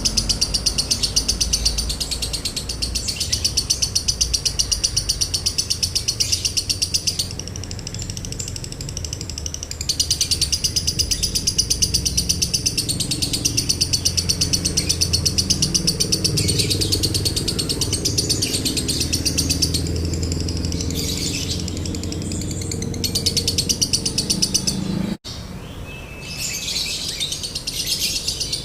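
Lovebird ngekek: a long, very fast high-pitched chattering trill repeated in extended runs with brief pauses, the sustained 'konslet' style prized by bird keepers. The sound cuts off abruptly about 25 seconds in and resumes, over a low background rumble.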